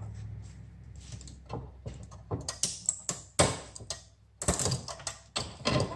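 Plastic housing of an electrical plug being pried and broken off its brass prongs with a hand tool: a run of sharp clicks, cracks and scrapes, the loudest crack about three and a half seconds in.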